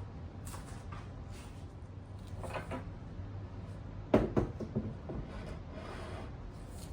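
Handling knocks and clatter from parts being moved, a few small ones and then a sharp, louder knock about four seconds in, over a steady low hum.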